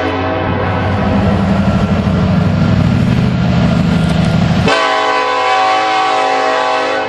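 Union Pacific SD70ACe diesel locomotive approaching: its horn fades out at the start, leaving a deep engine and wheel rumble. About two-thirds in, the multi-note air horn blows again as a long sustained chord.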